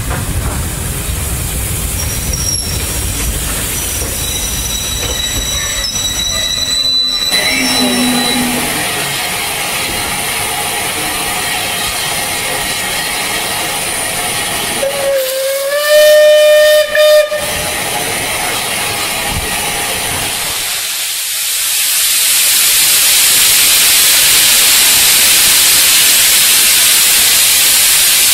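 Passenger coaches rumbling past at first. Later a Battle of Britain class steam locomotive sounds its whistle, a loud blast of about two seconds that breaks once. About five seconds after that a loud, steady hiss of steam starts and keeps on, blowing from around the cylinders as the engine struggles to get away.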